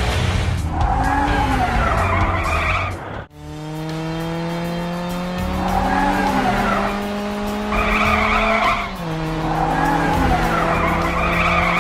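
Cartoon car sound effects: an engine hum that starts abruptly about three seconds in and slowly rises in pitch, with repeated wavering tire squeals about every three seconds.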